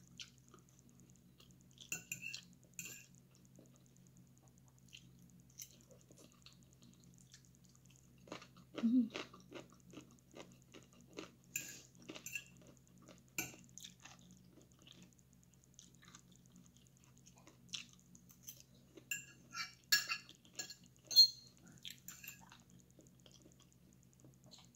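Metal fork clinking and scraping on a ceramic plate, with chewing between bites, in scattered clusters of short clicks. A faint steady low hum runs underneath.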